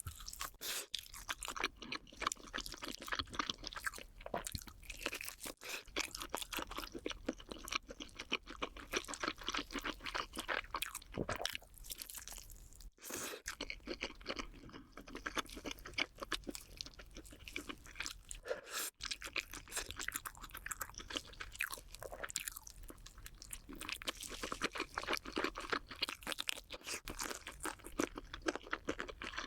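Close-up crunching and chewing of crunchy cheese balls: a fast, continuous run of small crisp crunches, with a couple of short pauses.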